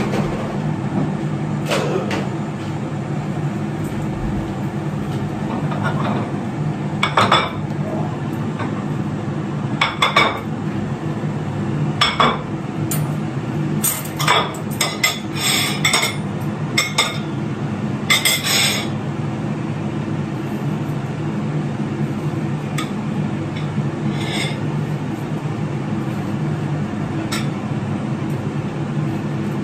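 Plates and a knife clinking and knocking on a countertop as vegetables are cut and laid out on plates, with a cluster of sharp clinks through the middle and a steady low hum underneath.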